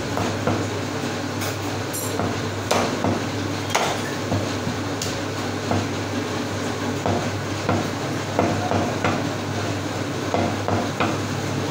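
Meat cleaver chopping goat meat against a wooden log chopping block: sharp, irregular chops about once a second, over a steady low hum.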